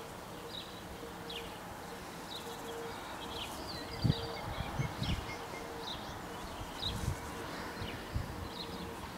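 Small birds chirping in short calls, over a faint, repeatedly broken steady tone from the level crossing's warning bell. A few low thumps sound, the loudest about four seconds in.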